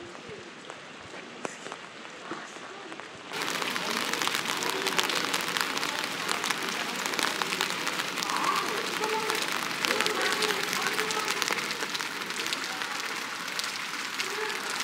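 Steady rain pattering, a dense crackle of drops that comes in suddenly about three seconds in and holds even after that; before it only a light, sparse patter.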